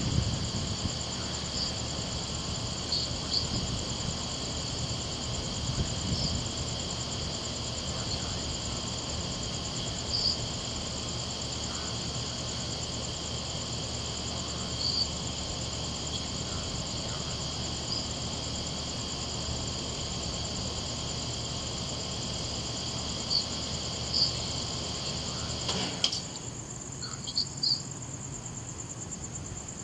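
Crickets trilling steadily in a night chorus at several high pitches, with short chirps every few seconds. A low rumble under them stops after a click near the end.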